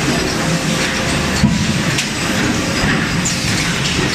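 Steady loud din of forging-shop machinery around a hydraulic die forging hammer, with a few sharp metallic knocks about one and a half and two seconds in.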